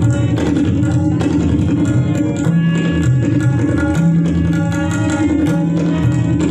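Tabla solo in teental: a qaida played in rapid, dense strokes over a sustained melodic accompaniment.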